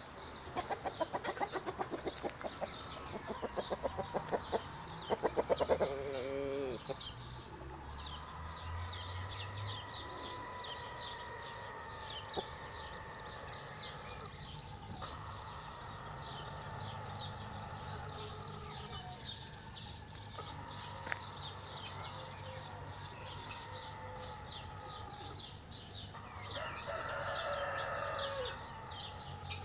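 Domestic chickens clucking in quick runs over the first several seconds, with many short high chirps throughout and another pitched fowl call near the end.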